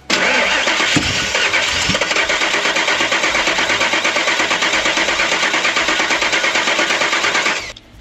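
Pickup truck engine being cranked by its starter with the gas pedal held to the floor, turning over in a steady, even rhythm without firing. It is flooded-cranking so that the engine will not start during a cable voltage drop test, and the cranking stops suddenly near the end.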